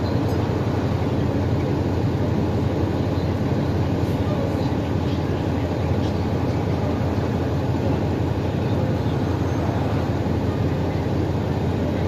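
2012 NABI 416.15 diesel transit bus, heard from on board, with its engine running steadily and no distinct events.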